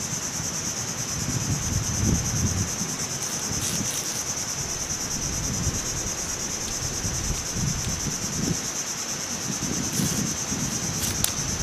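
Steady high-pitched insect chorus of crickets or cicadas, with irregular low rustling and a few faint ticks as a palm frond is handled and split with a bolo knife.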